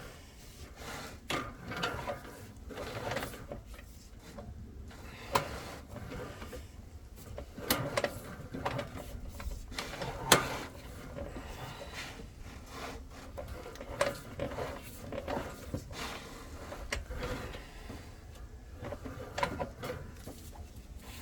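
Drain inspection camera's push rod being fed along the sewer pipe: irregular clicks, knocks and scraping, with a few sharper knocks as it moves forward.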